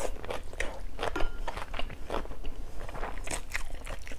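Close-miked chewing of crispy pan-fried rice-flour cake (bột chiên): irregular soft crunches and wet mouth clicks, several a second.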